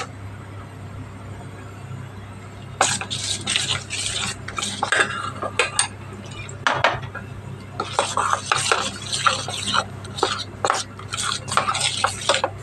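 A metal utensil stirring and beating a flour-and-spice fritter batter in an aluminium bowl, scraping and clinking against the bowl in quick irregular strokes, starting about three seconds in.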